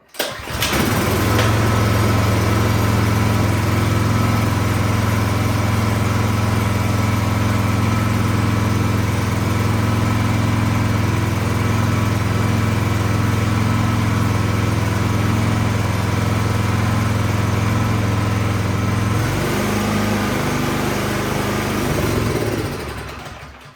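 Troy-Bilt 26-inch snowblower's small single-cylinder engine running steadily, then going rough about nineteen seconds in and dying out near the end. This is the stall the engine shows off full choke, a sign of a dirty carburetor that lets it run only on full choke.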